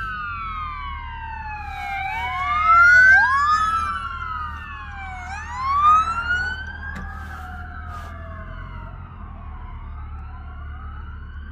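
Several police cruisers' sirens wailing at once, their rising and falling tones overlapping. They are loudest about three seconds in and again near six seconds, then grow fainter.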